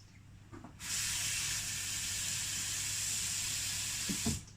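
Tap water running into a bowl to fill it for washing the starch out of seitan dough, a steady hiss that starts about a second in and shuts off near the end.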